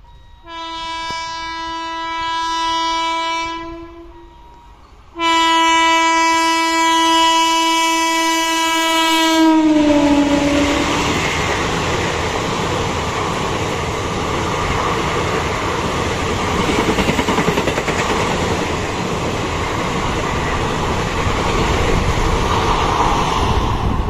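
Indian Railways electric locomotive sounding its horn in two long blasts, the second dropping in pitch as the locomotive passes. Then comes the steady rush of the train's passenger coaches rolling by on the rails.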